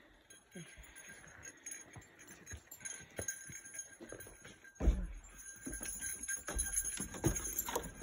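A small bear bell jingling in time with footsteps, over the dull thuds of footfalls. The loudest thud comes about five seconds in. Bear bells are worn to warn bears of a hiker's approach.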